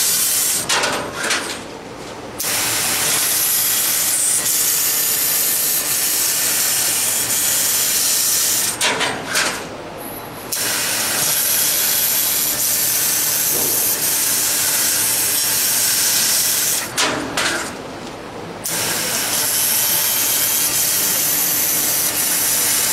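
600 W YAG laser cutter cutting steel plate: a loud, steady hiss from the cutting head as it cuts, dropping away three times for a second or two between cuts.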